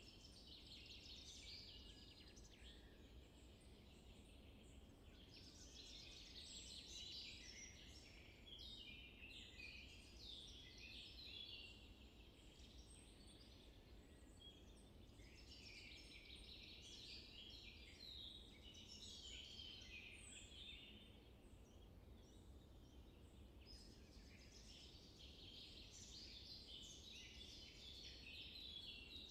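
Faint birdsong: several small birds chirping and singing in bunches of short, quick notes that come and go every few seconds, over a steady low hum.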